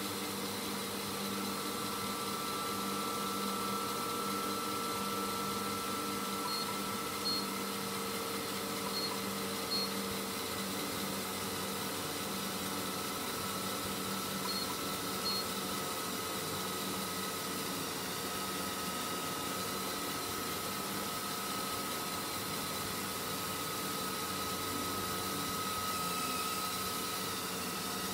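Treadmill belt and motor running steadily, with the electric whine of Lego Technic Powered Up XL and L motors driving small wheeled vehicles against the moving belt. Short high beeps come in pairs three times as the treadmill's speed is stepped down.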